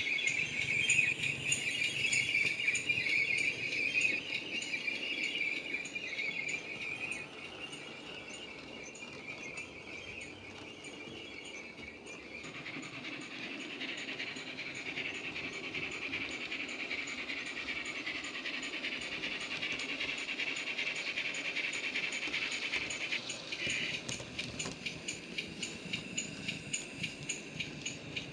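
OO-gauge model GWR 16XX pannier tank with a LokSound 5 DCC sound decoder, playing steam locomotive running sounds through its onboard speaker, together with the model's running noise. It is loudest as the loco passes close by at the start, fades, then grows again. Near the end a quick, even clicking sets in as the train of wagons goes past.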